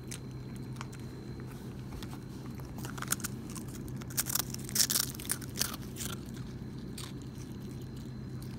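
A dog chewing saltine crackers: a cluster of sharp, crisp crunches from about three to six seconds in, with a few single crunches before and after.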